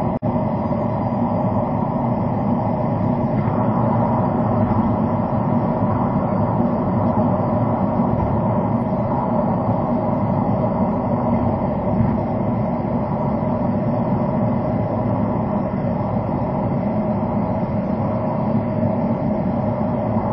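Steady road and engine noise inside a car's cabin, cruising at expressway speed, as picked up by a dashcam microphone. A split-second dropout in the sound just after the start.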